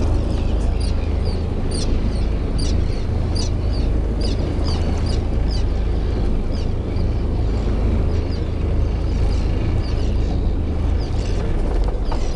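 Boat motor running with a steady low hum while the boat cruises. Short high chirps repeat about twice a second over it through the first half, thinning out later.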